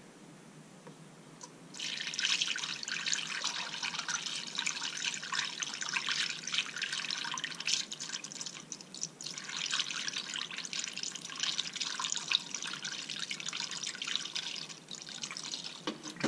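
Engine coolant pouring from a plastic jug through a plastic funnel into a car radiator, refilling it after a coolant flush. The splashing pour starts about two seconds in, eases off briefly around the middle, then runs on until near the end.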